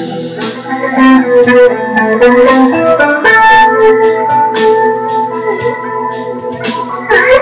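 Jam-session music: a keyboard playing held organ-sound chords and melody notes, with guitar and a beat of sharp percussive hits about twice a second.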